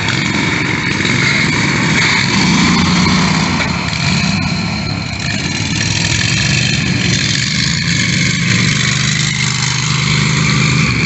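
Riding lawn mower engines running hard through mud and water, their pitch rising and falling as the throttle changes.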